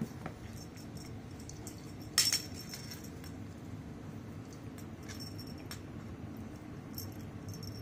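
Light metallic jingles and clinks from a cat's collar as it wrestles a teaser toy on the floor, with one sharper clink about two seconds in, over a low steady hum.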